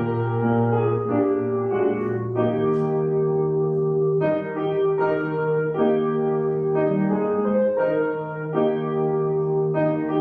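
Slow keyboard music: sustained chords held and changing every second or two.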